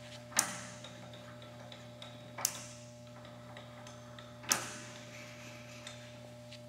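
Three sharp clicks about two seconds apart, each with a short ringing tail, over a steady low hum.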